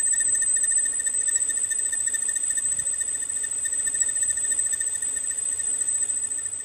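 Metal-cutting lathe boring the inside of a steel rotor hub with a long boring bar, giving a steady, loud, high-pitched ringing squeal over the cutting noise. This is typical of a long, overhung boring bar chattering in the cut. The sound stops suddenly at the end.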